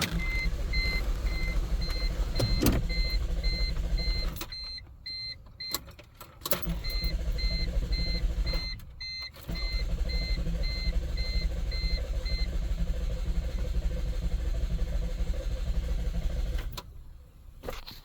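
1990 Toyota Camry V6 being cranked by its starter three times, the first and third attempts long, without the engine catching: a no-start. A rapid, repeating dashboard warning chime beeps through the first two attempts and stops partway through the third.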